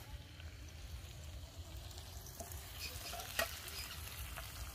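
Faint, steady sizzle of food frying in a pan, with a low rumble underneath and a single sharp click about three and a half seconds in.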